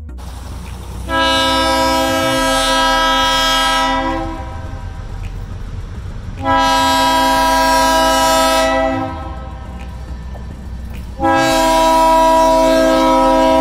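Pickens Railway diesel locomotive blowing its multi-tone air horn: three long blasts, with the third still sounding at the end, over the low rumble of the passing train.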